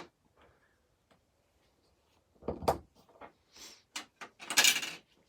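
Dry-erase marker writing on a whiteboard: a series of short scratchy strokes starting about halfway through, with a longer, louder stroke near the end.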